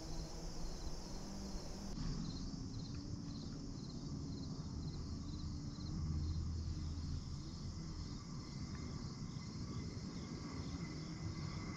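Insects chirping in a steady, evenly repeating rhythm of short high pulses. A low rumble swells briefly about six seconds in.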